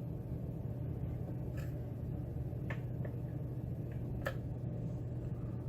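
Faint, scattered metallic clicks of a hook pick working the pins inside a custom-pinned pin-tumbler challenge lock during single-pin picking, about five in all, the loudest about four seconds in. A steady low hum runs underneath.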